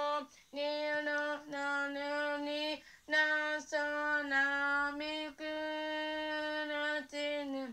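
A woman singing unaccompanied into a handheld microphone: a run of steady, held notes in short phrases with brief breaks between them, stopping abruptly near the end.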